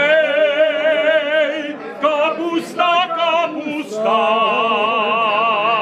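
A man singing a folk song unaccompanied, holding long notes with a wide vibrato: a long note at the start, a few shorter notes, then another long held note.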